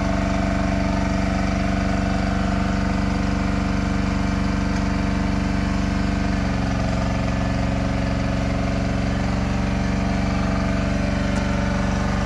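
An engine running steadily at idle, its note shifting slightly about six and a half seconds in.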